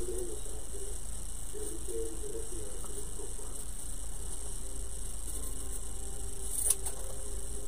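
Steady electrical mains hum with a faint high-pitched whine, and a single sharp click near the end.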